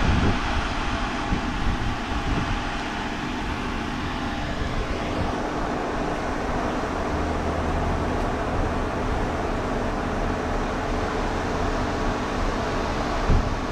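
Steady outdoor background noise: a low rumble and hiss with a faint steady hum, and one short knock near the end.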